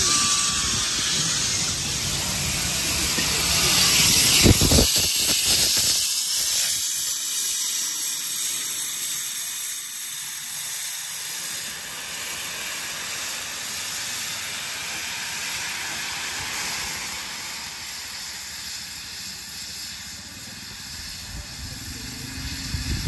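Steam locomotive 3801, a streamlined NSW C38-class Pacific, hissing steam as it passes beneath. The hiss is loudest about four to five seconds in, with a few knocks, then fades steadily as the engine draws away.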